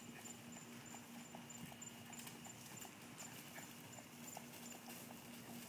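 Faint, rhythmic hoofbeats of a saddled horse trotting on dirt footing.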